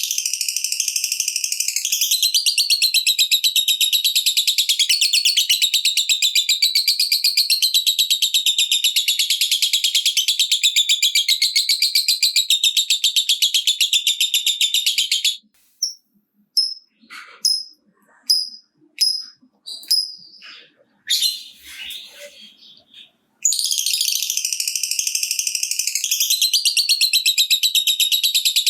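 Lovebird's long ngekek, a very fast, rattling trill likened to typing, held for about fifteen seconds. It breaks into a few seconds of scattered short chirps, then the trill starts again near the end.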